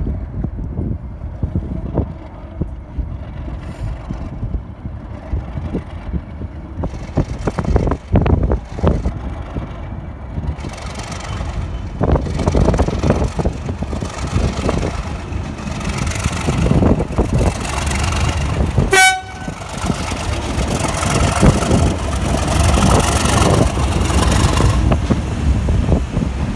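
Two Class 37 diesel locomotives with English Electric 12CSVT V12 engines running as they approach and pass beneath, the engine noise growing louder from about ten seconds in. A short horn toot sounds about two-thirds of the way through, then the test coaches run past over the rails.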